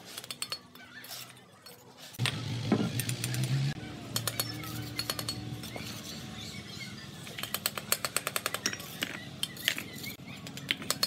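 Clay bricks clinking and knocking as they are handled, set in mortar and tapped down with a steel trowel: a scatter of sharp clicks, with a quick run of taps in the last few seconds.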